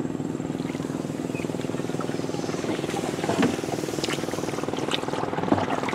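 Small boat engine running steadily with a fast, even beat.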